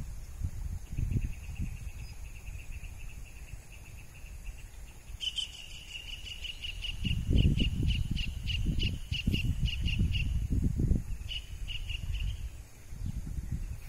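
A high chirp from a small animal, repeated evenly: faint and rapid at first, then stronger at about three chirps a second for several seconds, and a short run again near the end. Under it is low, uneven rumbling noise, loudest around the middle.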